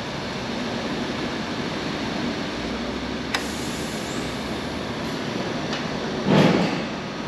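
A steady workshop hum, with two light clicks of metal parts as a motorcycle foot peg, its spring and pin are handled. One louder short knock comes near the end.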